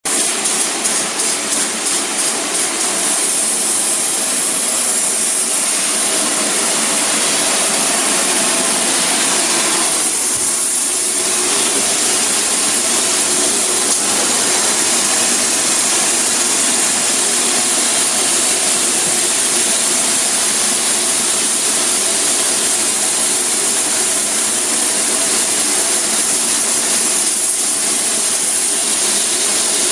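Spray polyurethane foam insulation gun hissing steadily as foam is sprayed onto the roof deck, over a steady machine hum. The noise pulses briefly in the first few seconds, then holds even and loud.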